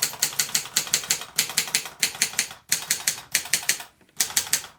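Moskva-4 portable manual typewriter being typed on: a fast run of sharp key and typebar strikes, several a second, with brief pauses about two and a half and four seconds in. Its key action is stiff.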